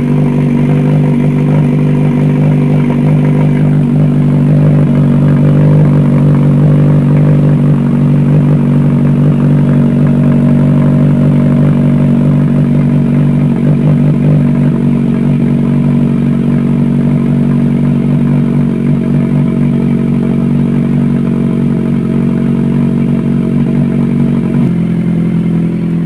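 Kawasaki Ninja 1000SX's inline-four engine idling steadily on a cold start through an SC Project screen-type slip-on muffler, very loud. The exhaust note shifts slightly near the end.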